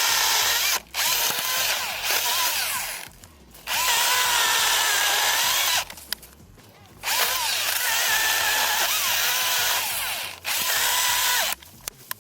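Husqvarna 225i battery chainsaw cutting wood in about five bursts of one to three seconds, its electric motor whining with a wavering pitch, stopping briefly between bursts.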